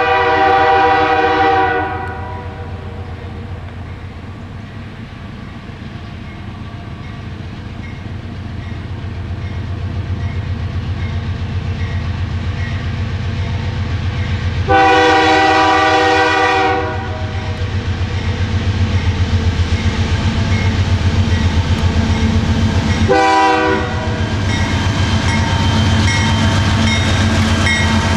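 Canadian Pacific diesel freight locomotives sounding their air horn: a long blast at the start, another long blast about 15 seconds in, and a short one about 23 seconds in. Between the blasts the diesel engines run steadily and grow louder as the train approaches, with wheels clacking on the rails.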